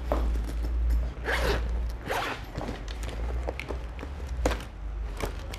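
A zipper pulled in several short rasps, with light clicks and rustling between them.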